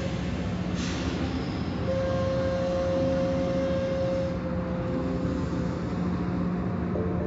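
Automatic tunnel car wash machinery running, heard from inside a car: a steady hum and rumble of the wash equipment, with a burst of water-spray hiss about a second in and a steady whine from about two seconds in to past the middle.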